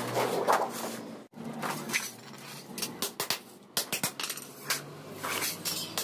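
Sharp metallic clinks and knocks, irregular and in quick succession, from sheet-steel parts being handled and worked. The sound drops out abruptly for an instant a little over a second in, then the knocking goes on.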